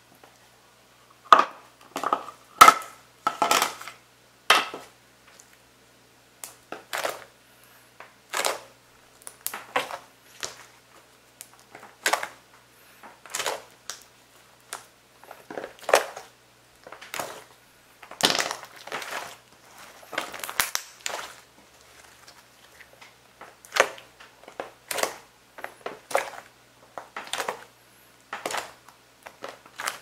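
Hands kneading and pressing a soft green slime: short wet squelches and crackles, one after another about every second, with quicker clusters a couple of seconds in and again past the middle.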